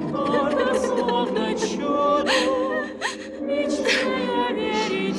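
Wordless choir of women's voices singing softly with vibrato, from the film score, over a young woman's breathy crying sobs.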